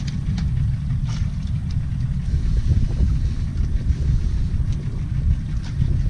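Low, uneven rumble aboard a fishing boat at sea, with a few faint clicks.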